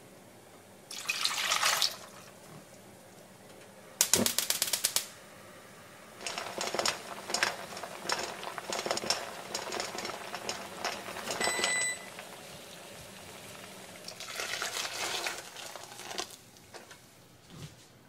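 Water poured into a stainless steel pot of asari clams, then a fast run of sharp clicks. The clams boil in the pot with a busy crackle and clicking of shells, broken by a short beep. Near the end the metal lid clinks onto the pot.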